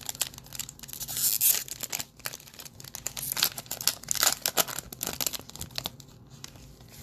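A basketball trading-card pack wrapper being torn open and crinkled by hand, in two louder rustling bursts among smaller crackles.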